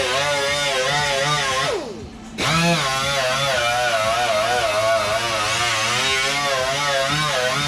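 Grinder fitted with a small paint-stripping disc running under load, its pitch wavering as the disc is pressed against the panel metal to strip and clean it. About two seconds in it is let off and spins down, then starts again and runs on.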